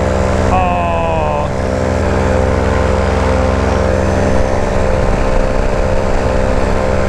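Two-stroke paramotor engine and propeller running steadily in flight, a constant drone. A brief higher-pitched sound comes about a second in.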